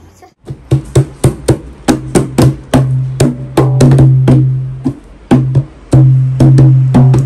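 A dholak, a two-headed rope-laced barrel drum, beaten by hand in an uneven rhythm of about four strokes a second, its bass head booming under each stroke. It is the playing of a child who has not yet learned the drum.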